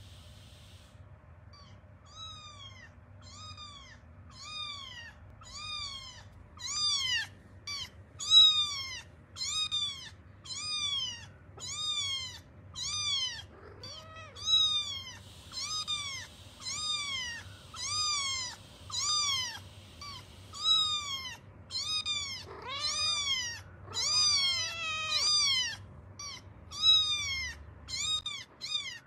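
Recorded kitten crying played from a phone's speaker: high-pitched mews repeated about once a second, faint at first and louder from a few seconds in.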